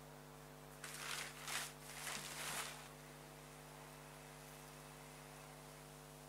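Steady low electrical hum, with a few seconds of rustling noise starting about a second in.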